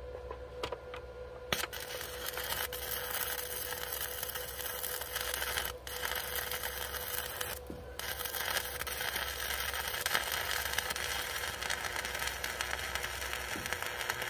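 Stick-welding arc from a Power Fist 110 inverter arc welder: a steady crackling sizzle as the rod burns, struck about a second and a half in and briefly broken twice before carrying on.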